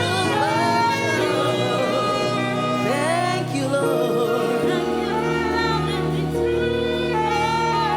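Gospel praise and worship music: a singer's voice over sustained keyboard chords.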